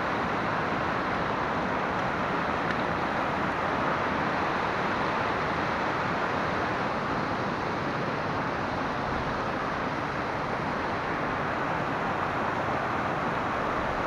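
Glacial meltwater stream rushing and foaming over rock slabs in a steady, unbroken rush of water.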